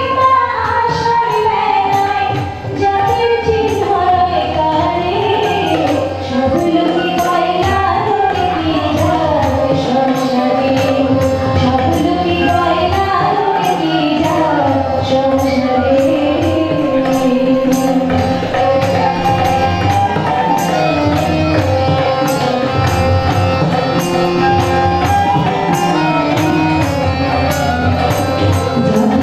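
A woman sings a devotional song into a microphone while playing a harmonium, which holds sustained reed chords under her voice. A steady beat of hand percussion keeps time.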